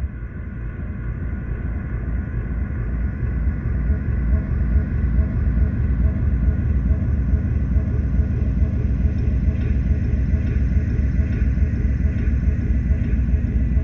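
Deep, dense rumbling drone that swells over the first few seconds and then holds steady, with a faint regular pulsing above it: a dark horror ambience effect.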